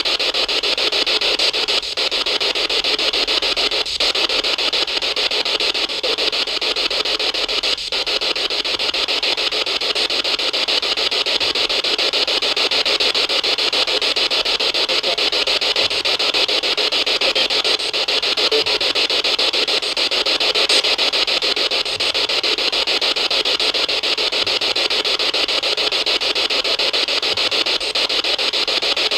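Loud, steady hiss of static that breaks off briefly a few times, about 2, 4 and 8 seconds in.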